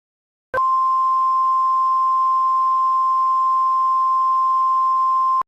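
A steady electronic beep tone at a single pitch, starting about half a second in, holding for about five seconds and then cutting off suddenly.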